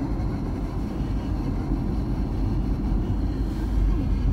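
Steady low rumble of a vehicle driving along a road, heard from inside it.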